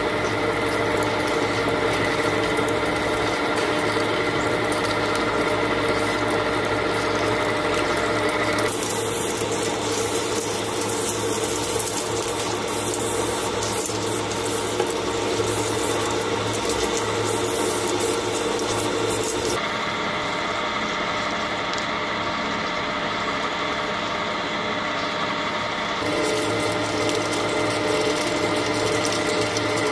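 Ikeda RM-1575 radial drill press boring into steel plate with a large twist drill under a coolant jet: a steady machine hum with several held whining tones from the spindle head, over the scraping of the cut. The tone changes abruptly a few times.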